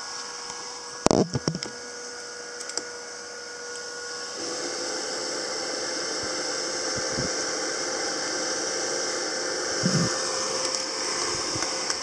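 Small battery-powered handheld fan running with a steady whir and motor hum, growing louder about four seconds in. Sharp plastic knocks come about a second in, and a thump near ten seconds, as the fan is handled and stood on the wooden floor.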